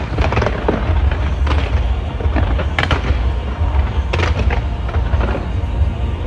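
Fireworks going off, with about four sharp crackling bangs spaced a second or so apart over a constant heavy low rumble.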